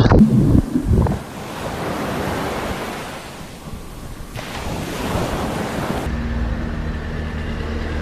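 A body plunging into a swimming pool: a loud splash and a muffled underwater rush. Then shallow waves washing on a beach with wind buffeting the microphone for several seconds, giving way near the end to a steady low hum.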